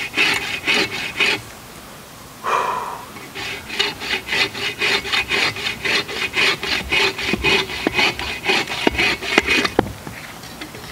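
Agawa folding bow saw with its all-purpose blade cutting dry ironwood (hophornbeam) in rapid, even push-and-pull strokes. There is a pause of about a second near the start, then the strokes resume and stop about a second before the end.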